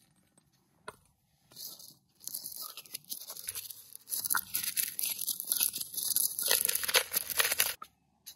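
Black stone pestle crushing and grinding dried red chillies and coriander seeds in a granite mortar, a dense crackling crunch that starts about two seconds in and stops just before the end, after a light knock about a second in.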